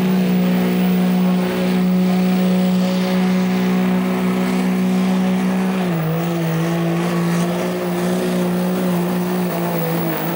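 Dodge Ram's Cummins inline-six turbodiesel pulling a weight-transfer sled, held at high, steady revs. About six seconds in, the engine speed drops a step and holds lower as it works against the sled.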